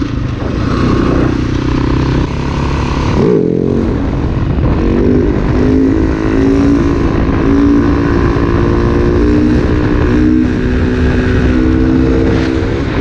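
Husaberg dirt bike engine under hard throttle, revving up and shifting through the gears, its pitch climbing and dropping back at each shift, while the bike rides on its back wheel in a wheelie.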